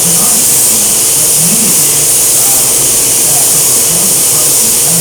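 Steady, loud hiss of compressed air spraying, like a spray gun in use, with a faint voice underneath.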